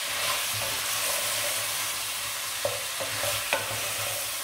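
Mutton pieces sizzling as they fry with ground spices in a metal pot while a wooden spatula stirs them, with a few knocks of the spatula against the pot.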